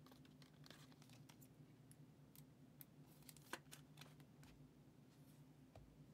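Near silence, with faint scattered clicks and rustles of a trading card being slid into a plastic sleeve and rigid top loader over a low steady hum. One click, about three and a half seconds in, stands out a little.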